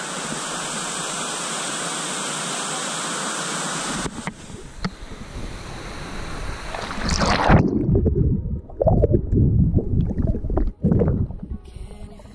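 Steady rush of waterfall water that cuts off about four seconds in. Then water splashes and sloshes in loud, irregular, muffled gusts as a person wades into the cold pool.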